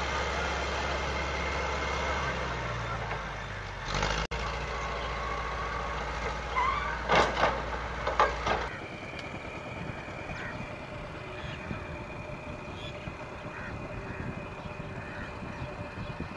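A heavy vehicle engine running with a steady low rumble, a few loud knocks and bangs over it. The rumble cuts off suddenly just past halfway, leaving a fainter steady high tone.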